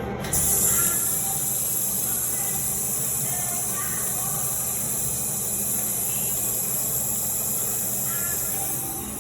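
Commercial flush valve on a restroom toilet or urinal flushing: a loud rush of hissing water that starts suddenly and runs on for several seconds before easing near the end.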